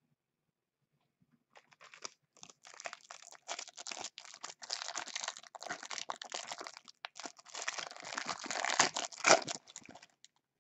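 Plastic wrapper of a trading-card pack being torn open and crinkled by hand: a dense run of crackling and rustling that starts about two seconds in and is loudest near the end.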